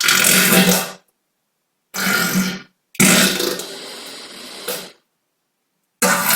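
Human farts: four separate loud, buzzing bursts cut apart by dead silence, the third the longest at about two seconds and trailing off.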